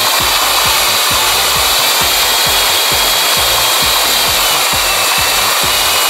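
Steady, loud rushing road and tunnel noise heard from inside the cabin of a Nissan March nismo S driving through a long road tunnel, with a thin high whine running through it.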